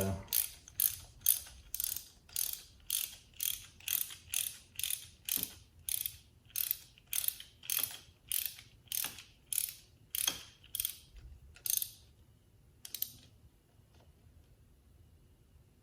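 Ratchet wrench clicking in a steady series of strokes, about two a second, that stops about 13 seconds in.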